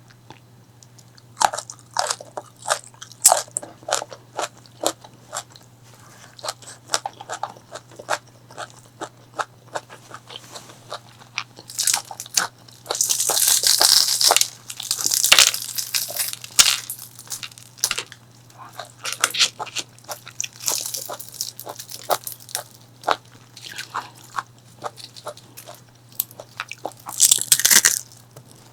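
Close-miked crunching bites and chewing of crispy fried food: a run of sharp crunches, with two longer, louder stretches of dense crunching about halfway through and near the end, over a faint low hum.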